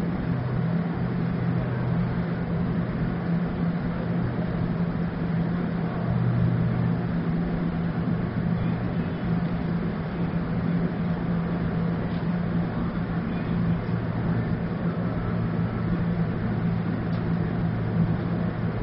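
Steady low mechanical hum of a vehicle, two constant low tones over an even rushing noise, unchanging throughout.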